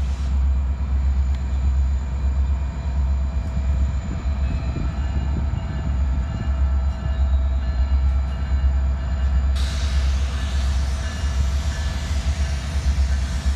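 BNSF diesel locomotive running as it moves slowly along the track, a steady low engine rumble.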